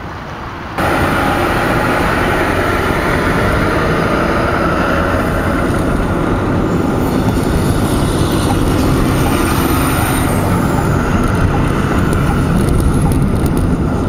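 Steady road and engine noise heard from inside a moving car, starting suddenly about a second in.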